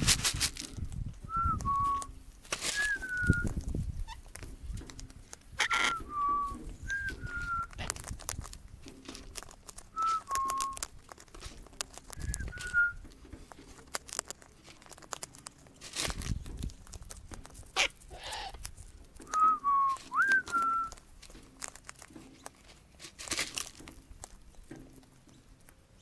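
Short two-note whistles that drop in pitch, about eight of them spaced through the stretch, two coming close together near the end. Brief sharp noises come in between.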